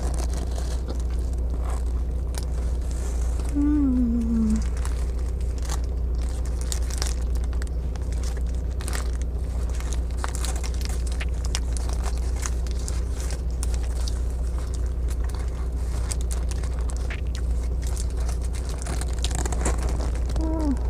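Close-miked chewing and biting into a Whopper burger with mozzarella, with its paper wrapper crinkling and many small clicks, over a steady low hum. A short hummed "mm" falls in pitch about four seconds in.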